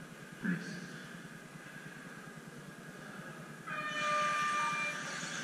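Electric 1/10 scale touring cars racing on a carpet track, their motors giving a faint steady whine. About three and a half seconds in, a horn-like tone sounds for about a second over a sudden louder rush of noise.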